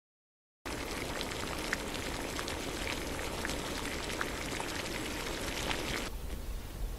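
Liquid boiling in a steel pot over a wood fire: a steady bubbling hiss with scattered small pops. It starts abruptly about half a second in and thins out near the end.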